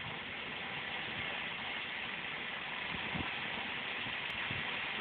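Large fire burning high in a fire basket: a steady rushing of flames with a few faint pops.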